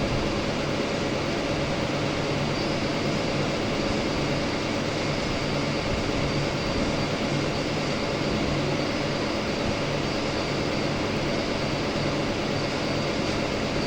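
CNC milling machine running steadily: a constant mechanical hum with a faint high whine.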